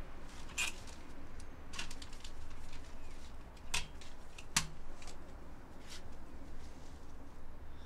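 A few sharp metallic clicks and clacks from a front door's letterbox flap as a letter is pushed through it, the loudest about three and three-quarter and four and a half seconds in, over a low steady rumble.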